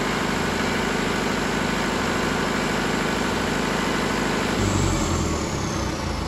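Yanmar 4TNV98T four-cylinder turbodiesel generator engine running at a steady speed. About four and a half seconds in it is switched off and runs down, a high whine falling in pitch as it slows.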